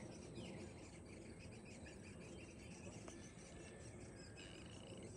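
Faint, rapid high-pitched chirping of woodpecker nestlings begging from the nest, with one short downward-sliding chirp near the start.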